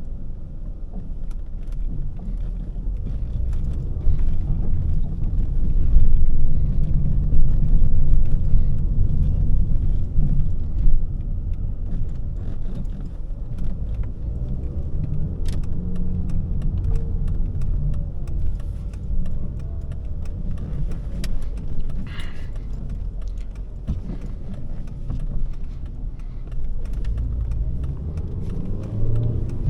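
Volvo S40 2.4-litre five-cylinder petrol engine and tyre rumble while driving, with scattered light clicks and knocks. The engine pitch rises as the car accelerates, briefly around the middle and again near the end.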